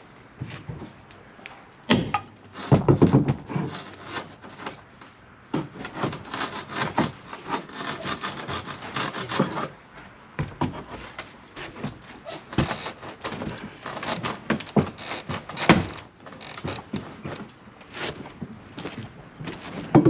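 Wooden porch framing being pried and pulled apart by hand: an irregular string of knocks, thunks and scraping wood. A sharp knock comes about two seconds in, followed by a denser patch of scraping.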